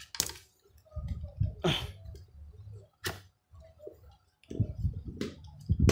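A few sharp clicks and knocks of hard objects being handled, spaced a second or more apart, with low rumbling handling noise between them.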